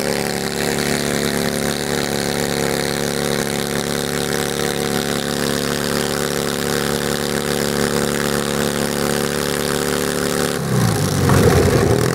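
Garden tractor engine running at a steady speed, then revving up and getting louder near the end.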